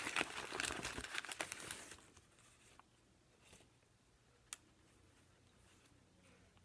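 A bag crinkling as a hand rummages in it for about two seconds, then quiet apart from a single small click.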